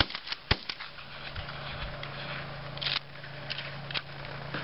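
Shotgun shots fired in quick succession at birds flying over, three sharp reports within the first second, then a few fainter pops and rustles, over a low steady hum.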